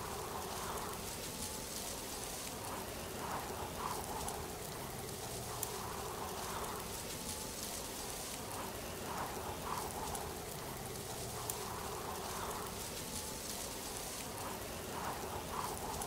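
Steady hiss of falling water, like a waterfall or heavy rain, with faint chirps and swells that come back about every six seconds, as in a looped nature ambience track.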